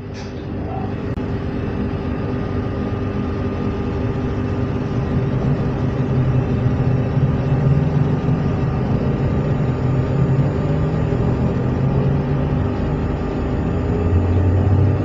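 SNCF Z 20900 electric multiple unit running: a steady hum with several held tones over a low rumble. It swells over the first few seconds and then holds loud.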